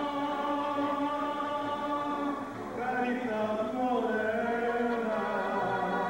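A male mariachi singer holds long sung notes into a microphone, with a new phrase starting about three seconds in. The mariachi band, including a guitarrón, accompanies him.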